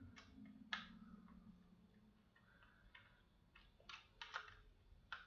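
Faint, irregular clicks and light taps, about seven in five seconds, from handling a small fire alarm horn strobe and its wires while it is being wired up.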